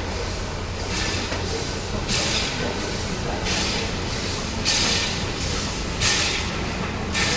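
Steam tank locomotive of the Brünig line working slowly with a train: sharp exhaust chuffs repeat evenly about once every 1.2 seconds over a steady low rumble from the train.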